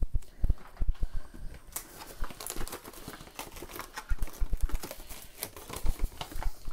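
Plastic cling wrap being pulled from its box and crinkled, with a dense run of crackling from about two seconds in, among light knocks and taps of hands working on the counter.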